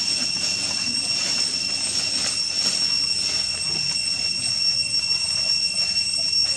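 Steady, high-pitched drone of cicadas: two even tones held throughout, with a pulsing hiss above them.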